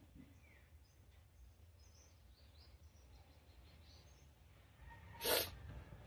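One sharp human sneeze about five seconds in, brought on by tickling the nose, with faint bird chirps in the background before it.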